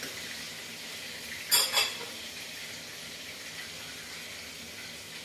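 Cooking at a stove: a short double clatter of a utensil against a pan about a second and a half in, over a steady low hiss.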